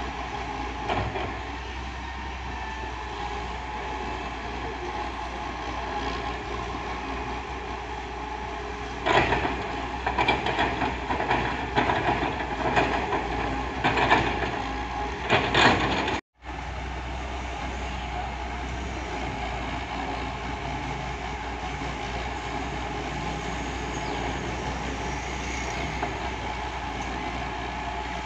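Daewoo wheeled excavator's diesel engine running steadily at a dirt dig, with a run of irregular clattering knocks from about 9 to 16 seconds in as the machine works. The sound drops out for an instant just after the clatter.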